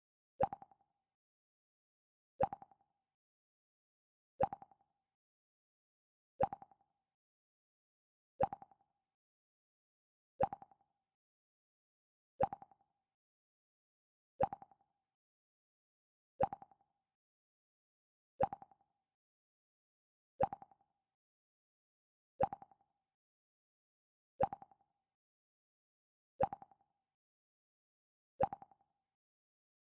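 The Mac OS X 'Pluck' sound effect: a short plucked tone that dies away quickly, repeated every two seconds, fifteen times.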